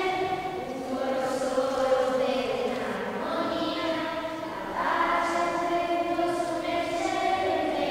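A children's choir singing together, holding long notes that change pitch every second or two.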